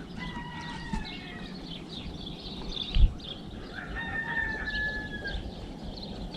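Roosters crowing: two long crows, the second starting about four seconds in. There is a short low thump near the middle.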